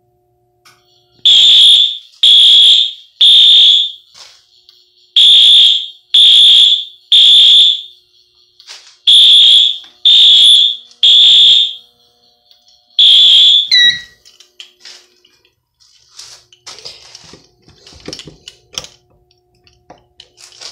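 Wheelock AS electronic fire alarm horn, set to low volume, sounding the temporal code-3 evacuation pattern: three short high blasts, a pause, repeated three times. It stops after one blast of the fourth group with a short falling chirp. Light clicks and rattles follow.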